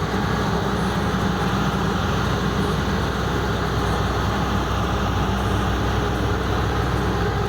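Truck-mounted borehole drilling rig running: a loud, steady heavy-engine noise with a deep hum.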